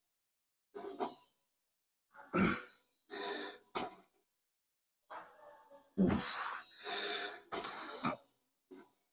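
A weightlifter's short, forceful breaths and grunts as he presses on a seated shoulder press machine, about eight in all, with dead silence between them.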